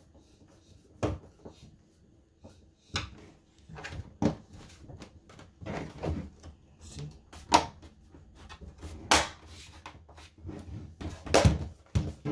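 Irregular plastic knocks and clicks from the back cover of an HP all-in-one desktop computer being handled, pressed into place and worked on with a screwdriver.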